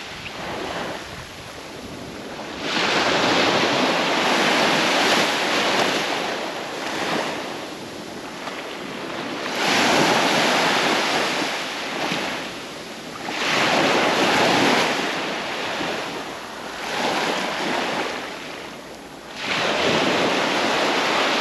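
Surf breaking on the beach, the rush of the waves swelling and fading every few seconds, about five times, with some wind on the microphone.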